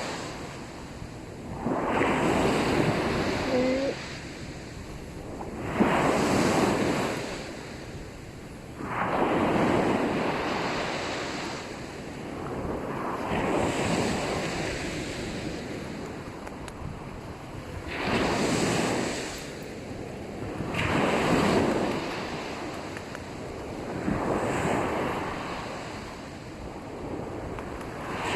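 Small sea waves breaking and washing up the sand, in rushing surges that swell and fade about every three to four seconds.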